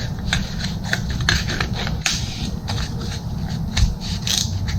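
A sheet of 2500-grit sandpaper being handled and cut to fit a sander pad: irregular crisp clicks and crackles, over a steady low hum.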